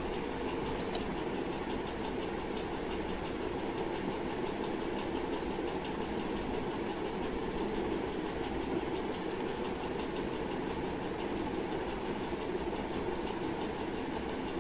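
A steady mechanical hum that runs on without change.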